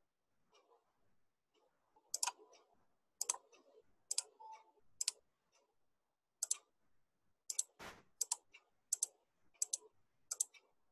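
Faint computer mouse clicks, about ten of them, roughly one a second, as the debugger's step buttons are pressed; one short noisier sound comes near the middle.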